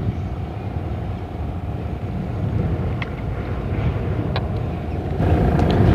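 A steady low rumble with a faint constant hum, and a couple of faint short ticks about three and four and a half seconds in.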